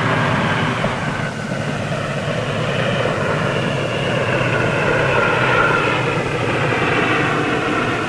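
Propeller airplane engines running steadily on the final approach to landing, with a faint whine that creeps slowly up in pitch from about a second in.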